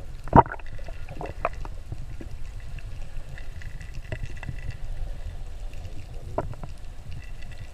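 Muffled water noise around a GoPro camera held in the sea, with a steady low rumble and scattered knocks, the loudest about half a second in.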